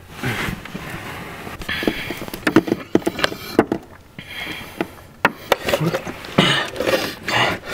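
Water being gulped from a plastic gallon jug, with heavy breaths between drinks and the jug's plastic clicking and knocking as it is handled.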